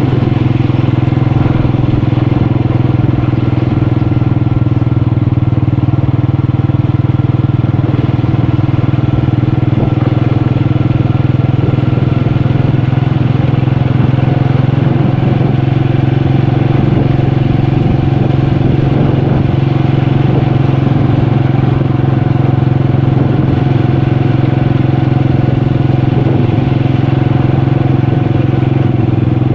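Motorcycle engine running loud and steady at an even pitch, holding one speed with no revving.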